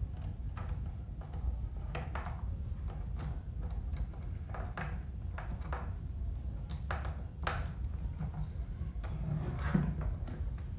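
Irregular clicks, knocks and short scrapes of hands and a screwdriver working on an old Arno fan's parts during disassembly, over a steady low background rumble.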